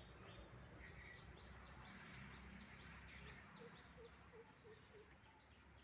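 Faint birdsong: many quick, high chirps throughout, with a run of about six short, low hooting notes a little past the middle.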